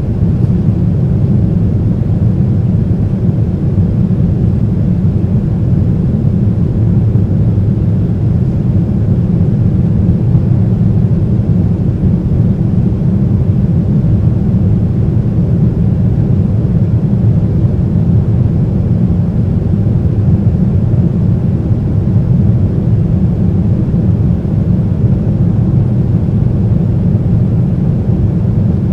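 Steady, deep rumble inside the cabin of a Boeing 767-300 powered by GE CF6 turbofans: engine and airflow noise with a strong low bass, even in level throughout.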